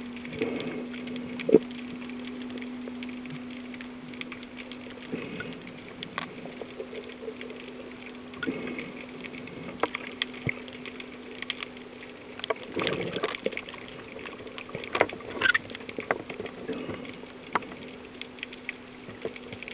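Sound heard underwater: water gurgling and sloshing over a steady low hum, with scattered sharp clicks and pops that cluster more densely past the middle.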